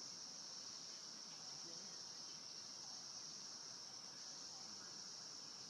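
A chorus of insects droning steadily at one high pitch, without a break.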